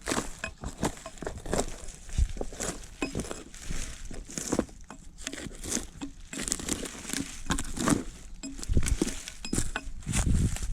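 Axe stripping bark from a felled log: a quick run of irregular cracks and scrapes as the bark is pried and torn away from the wood.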